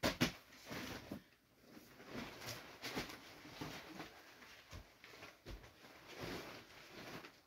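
Deflated vinyl inflatable dog toy being lifted and shuffled about, its thin vinyl crinkling and rustling irregularly; the rustling stops at the end.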